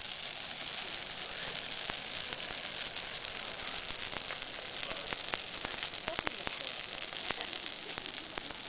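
Bonfire burning: a steady hiss of flames with frequent sharp crackles and pops, thickest in the middle of the stretch.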